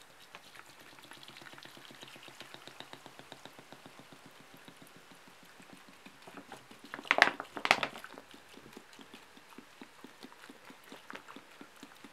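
Dark beer poured from a bottle into an enamel pot, the stream splashing and the rising foam fizzing and crackling, with two louder splashes about seven seconds in.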